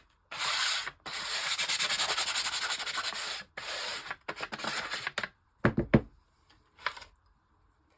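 Hand sanding of a small edge on a journal writing board, done in quick back-and-forth strokes that stop about five seconds in. A couple of sharp knocks follow, then a lighter click.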